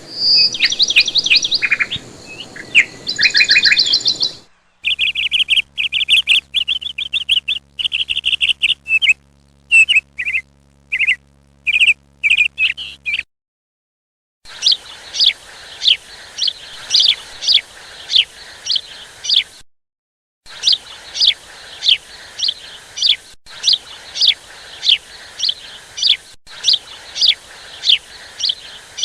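Songbirds chirping and singing, cut off abruptly at several points. The opening seconds hold varied, warbling notes. In the second half a bird repeats a short, high, falling chirp about twice a second.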